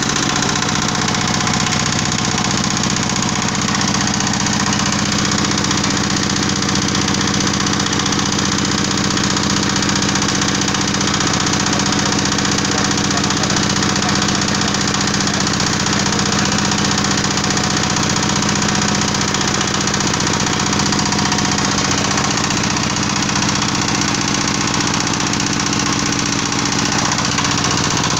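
Mini screw press for palm oil running steadily under load, its screw crushing palm fruit through the barrel cage. It makes a steady hum with a fast, even rattle.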